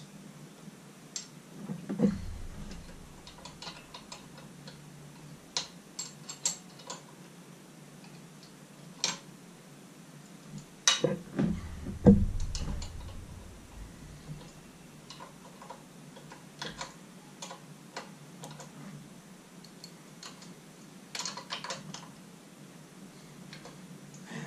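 Scattered small clicks, taps and knocks of hands and tools working on an outboard motor's wiring and electrical parts, with a few louder knocks about two seconds in and again around eleven to twelve seconds.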